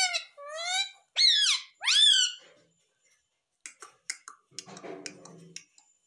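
Indian ringneck parakeet giving four short squeaky calls in quick succession, each rising then falling in pitch. About three and a half seconds in come a few light clicks, followed by a brief low buzz.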